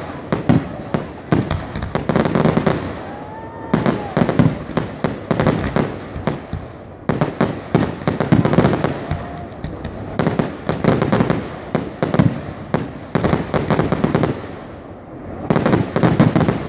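Fireworks display: volleys of rapid bangs and crackles from bursting aerial shells, coming in waves a few seconds apart with short lulls between.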